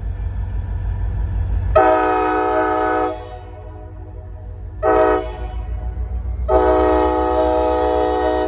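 Freight locomotive horn on CSX local L243 sounding three blasts, long, short, then long, over a steady low rumble.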